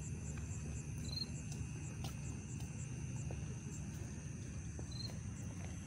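Night insects trilling steadily in the grass, a high continuous buzz with a faint pulsing chirp above it, over a low steady rumble.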